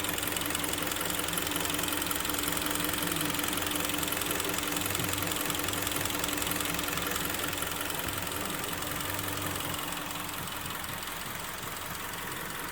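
Kia Sportage's freshly overhauled G4KD 2.0-litre four-cylinder petrol engine idling steadily, warmed up and running quietly.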